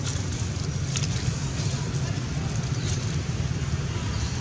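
Steady low outdoor rumble, with a few faint rustles of dry leaves as baby monkeys move over them.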